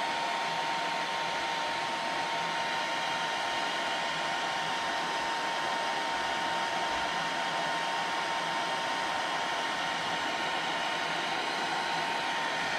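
Handheld heat gun blowing steadily, its rushing air carrying a constant whine.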